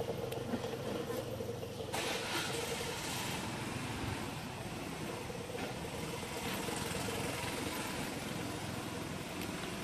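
A motor running steadily, like an engine idling, with a faint held tone that drops out and returns.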